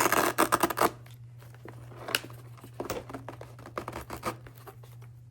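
Hands handling the RC jet's battery and its leads and straps: a harsh, tearing rustle for about a second at the start, then scattered lighter rustles and clicks.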